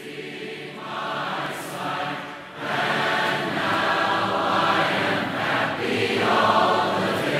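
A choir singing with sustained, held notes, growing markedly louder about two and a half seconds in.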